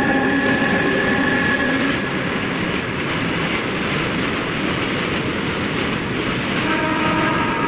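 Freight train rolling past close by: an Alstom WAG-12B electric locomotive followed by BOXNHL open wagons, a steady rumble and rattle of wheels on rail. A steady whine sounds over it for about the first two seconds, and again near the end.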